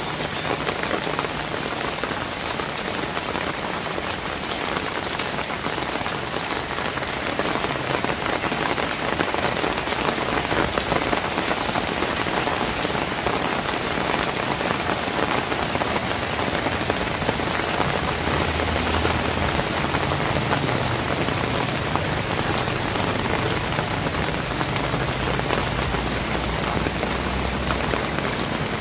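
Steady rain falling on wet pavement, with a low hum joining in about two-thirds of the way through.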